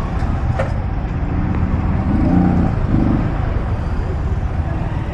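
Motorcycle riding through street traffic: steady engine and road noise with wind rumbling on the microphone.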